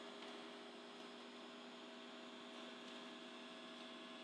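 Creality Ender 3's stepper motors running as the printhead travels to the next bed-levelling point: a faint, steady hum of several even tones.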